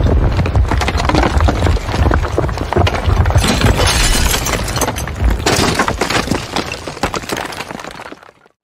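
A tall building collapsing: a heavy, continuous rumble full of crashing and cracking debris, with louder crashes about halfway through. It fades away and stops shortly before the end.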